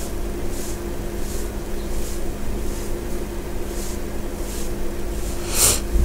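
Screwdriver turning a screw into an amplifier's sheet-metal cover: a faint scrape with each twist, about once a second, over a steady low hum. A louder scrape near the end.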